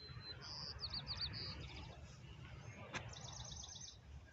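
Small songbird singing: a thin high whistle, then quick buzzy notes and a short run of repeated notes about a second in, and a fast trill near three seconds. Faint, over a low steady outdoor rumble.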